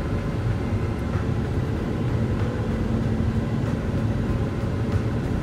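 Steady road and engine noise inside a car's cabin while driving on a freeway, a mostly low-pitched, even noise of tyres and engine.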